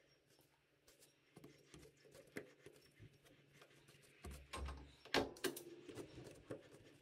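Quiet metal clicks and taps as a knurled tailstock die holder is handled and set up on a lathe, with a low thump and then a sharper metallic knock that rings briefly about five seconds in.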